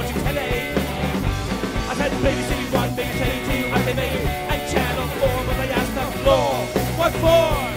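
Rock music playing: a full band with a steady, dense sound and some bending pitched lines near the end.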